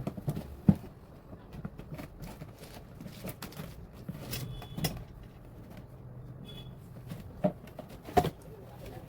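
Scattered clicks and knocks of objects being handled, the sharpest about a second in and twice near the end, with two faint short high tones in the middle over a low background hum.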